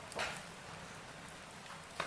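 Wood fire in a fireplace crackling: a steady soft hiss with a sharp pop about a fifth of a second in and another at the very end.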